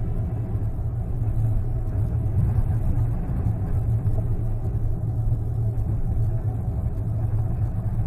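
Steady low rumble of a Dodge Nitro driving, heard inside the cabin: engine and tyre noise on a snowy highway.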